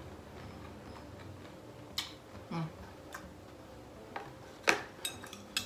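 Metal chopsticks and tableware clicking against a ceramic bowl: a handful of short, sharp, irregular clicks over several seconds, the loudest about three-quarters of the way through.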